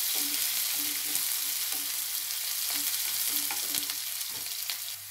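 Chopped onion, curry leaves and green chillies frying in hot oil in a non-stick kadai: a steady sizzle, with a wooden spatula stirring and scraping against the pan in short repeated strokes. The sizzle quietens a little near the end.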